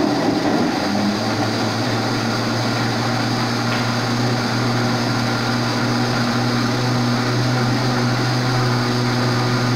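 Countertop blender running, blending fruit with kefir into a smoothie: a loud, steady motor drone that settles to an even pitch about a second in.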